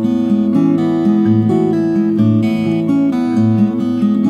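Background music: acoustic guitar playing, with low bass notes falling about once a second.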